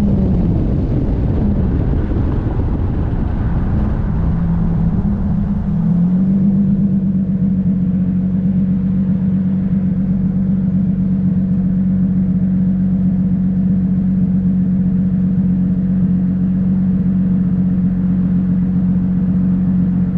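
Turbocharged RB25 straight-six in a swapped Nissan 240SX winding down as the car slows, then settling into a steady idle about six seconds in.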